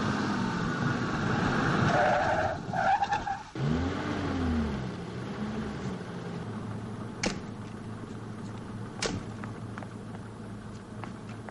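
Ambulance van pulling up and stopping, engine and tyres loud for about three and a half seconds before dropping away suddenly, followed by a low wavering tone. Later come two sharp clicks about two seconds apart.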